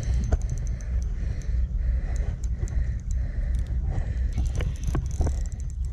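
Fishing reel clicking in rapid ticks while a hooked carp is played, over a steady low rumble of wind on the microphone, with a few short knocks.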